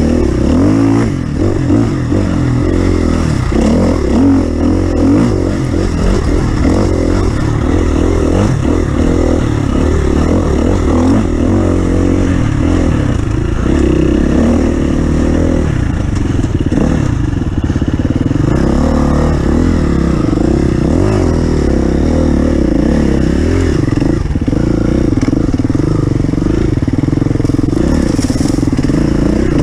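Off-road vehicle's engine running and revving unevenly over rough ground, with heavy low rumble and some clatter from the bumpy ride.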